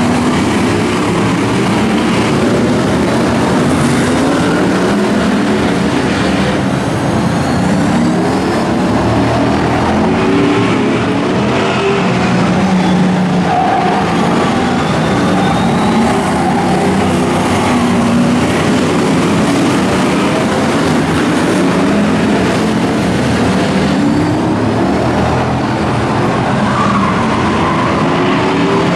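Several Heritage Stockcar F1 V8 engines racing together on a short oval, the pitch climbing and falling as the drivers lift and accelerate through the turns. Tyres squeal briefly now and then.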